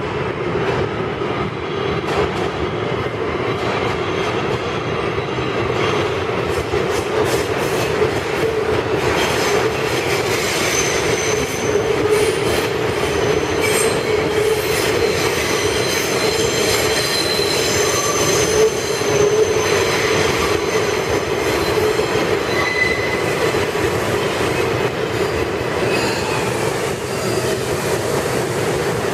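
R142A New York City subway train running through the station, a steady rumble with rapid clicking from the wheels over rail joints. High-pitched wheel squeal comes in from about a third of the way through and fades after the middle.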